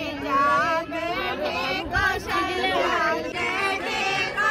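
Several voices singing together, women's and higher voices, with wavering, held notes; a traditional song sung during a child's ritual head-shaving.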